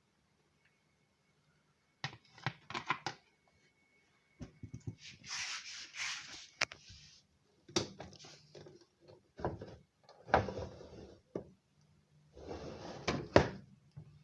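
Handling noises: after about two seconds of quiet, irregular bursts of knocking, rubbing and scraping come and go, with a few sharp clicks among them.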